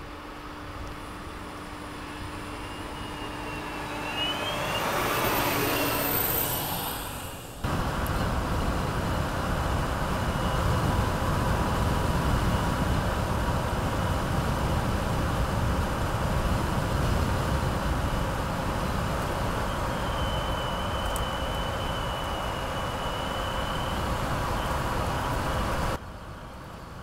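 Mercedes-Benz GenH2 fuel-cell truck driving by on its electric drive: tyre and road noise swells and fades as it passes, with a high whine that slides down in pitch. After a cut, steady rolling noise from the truck with a thin high whine held throughout.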